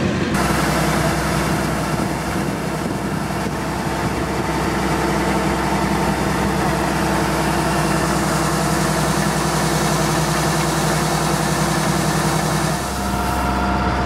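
Rice combine harvester engine running steadily, with the rushing hiss of threshed paddy grain pouring from its unloading spout into a sack. The pouring stops near the end and the engine note shifts.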